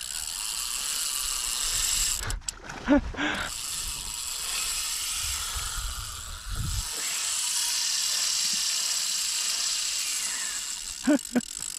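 A spinning fishing reel's mechanism ratcheting steadily for most of the stretch, with a sharp knock about three seconds in.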